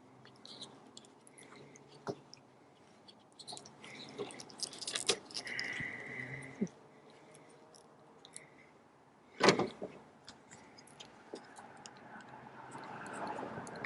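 Hand work on car parts: scattered light clicks and knocks, a short squeak about five and a half seconds in, and one loud sharp knock about nine and a half seconds in.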